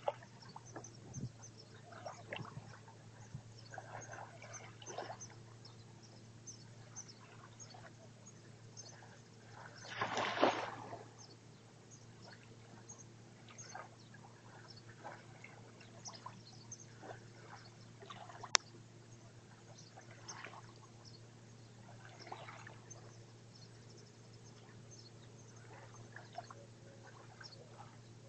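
Small wavelets lapping faintly at a sandy shoreline, with a louder wash about ten seconds in, over a steady low hum and many faint high chirps. A single sharp click comes near the eighteen-second mark.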